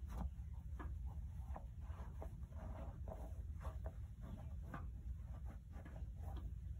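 Terry-cloth towels being pushed and tucked inside a leather handbag: cloth rustling and rubbing against the leather in a quick string of short, scratchy strokes and soft taps.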